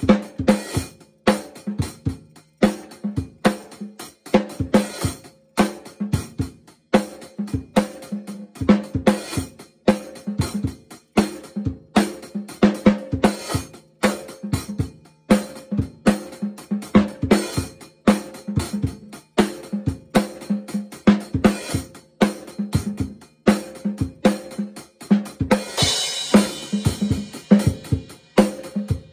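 Drum kit played in a steady rock beat: bass drum, snare and hi-hat. Near the end a crash cymbal rings for a couple of seconds over the beat.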